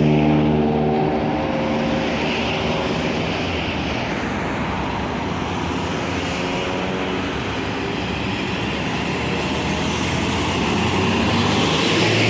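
Tour buses driving past in a convoy: a passing bus's diesel engine note fades over the first second or two, leaving steady road and traffic noise, with another engine coming in near the end.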